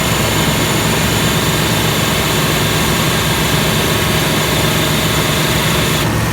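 Engine of an S10 Blazer running steadily, driving a Sanden AC compressor that has been converted to pump onboard air. A steady hiss sits over the low engine note and cuts off suddenly near the end.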